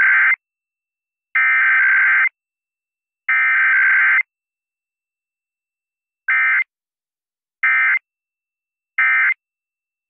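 Emergency Alert System SAME digital data bursts, buzzy modem-like screeches. Three header bursts of about a second each come roughly a second apart. Then three short end-of-message bursts close out a required weekly test.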